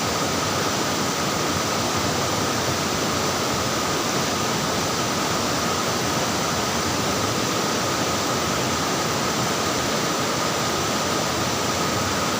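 Flowing water rushing steadily, an even splashing rush with a faint steady tone running through it.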